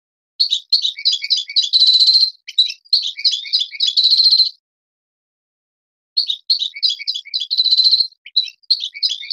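European goldfinch singing: rapid chirping notes broken by buzzy held trills. It comes in two long phrases with a pause of about a second and a half between them.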